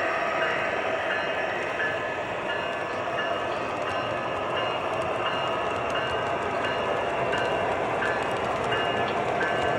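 A train running by with a continuous rolling noise. Short high tones recur about once a second over it.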